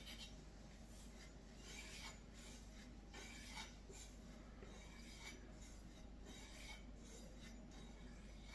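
Santoku knife edge drawn again and again along a small block to remove the burr left by the 1000-grit whetstone: a series of faint, short scraping strokes at uneven intervals.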